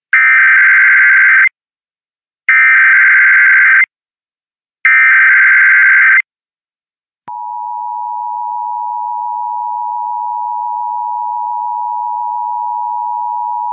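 Emergency Alert System header: three bursts of shrill digital warbling data, each about a second and a half long, then about seven seconds in the steady two-tone EAS attention signal starts and holds. This marks the start of a monthly EAS test broadcast.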